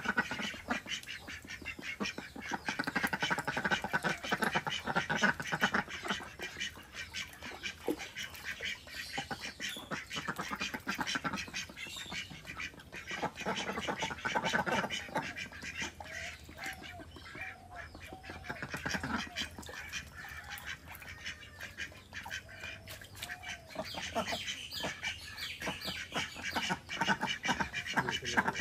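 Mallard ducks quacking while they dabble and splash in shallow duckweed-covered water, with a quick, continuous ticking from their bills working the surface.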